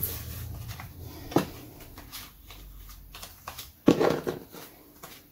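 Cards handled on a wooden table: a few soft taps and knocks, the loudest about four seconds in.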